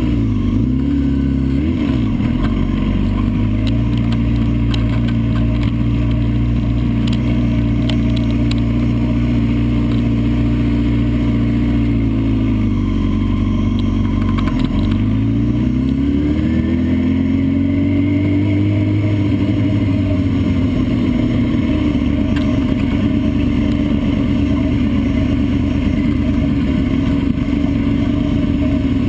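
Vehicle engine heard from an onboard camera, running steadily at fairly low, even revs over road and wind noise. The pitch dips briefly about 13 seconds in, then rises and falls again a few seconds later.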